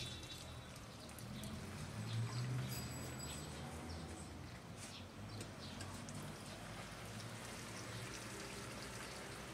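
Water pouring and trickling from a plastic watering can onto potted plants, over a steady low hum.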